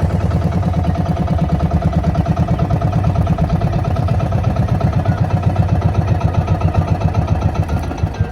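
Boat engine running with a fast, even pulsing beat, dropping away sharply near the end.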